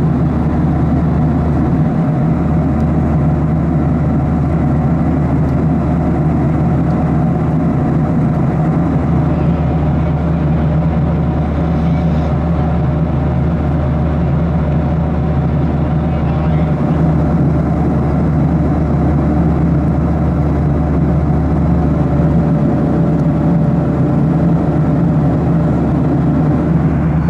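Steady cabin noise of a Boeing 737-800 in flight, heard inside the cabin: the CFM56-7B engines and the rush of air along the fuselage.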